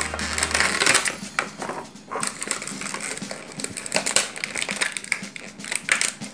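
Clear plastic blister pack being squeezed and pried open by hand, crackling and cracking in a quick run of sharp snaps.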